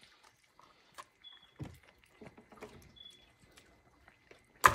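Small dog chewing a hard pepperoni-style dog treat off a wooden tabletop, making scattered soft clicks and crunches, with one sharp knock near the end.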